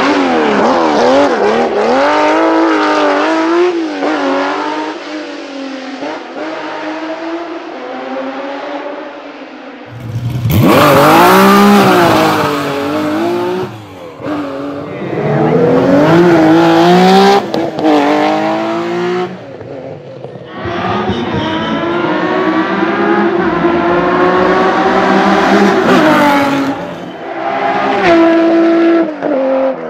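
Porsche 911 SC RS rally car's air-cooled flat-six engine revving hard and falling back again and again through gear changes and corners, heard across several separate passes. A louder, closer pass starts abruptly about ten seconds in.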